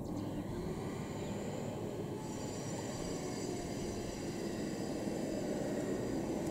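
Sikorsky S-76 helicopter in flight at a distance: a steady drone of its rotors and turbines, with a thin, high turbine whine coming in about two seconds in.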